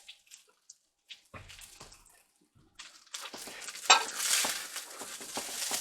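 A few faint clicks, then from about three seconds in a utensil stirring and scraping kimchi fried rice in a hot pan over a steady sizzle, with one sharp clink against the pan.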